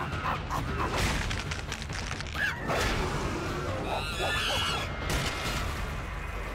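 Animated fight sound effects: apes shrieking and screaming in wavering, rising and falling screeches, with several heavy blows landing, the last a punch to an ape's face.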